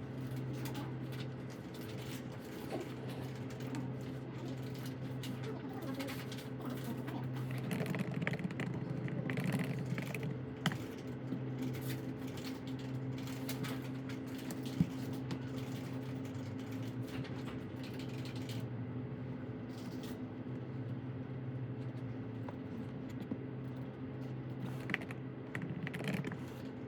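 Typing on a computer keyboard, irregular key clicks over a steady low hum.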